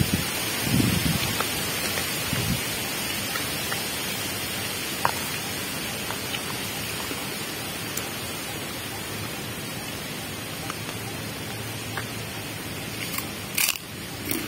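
Steady rushing of a flowing river, with light clicks of a metal spoon against a plastic food container and a short louder rustle near the end.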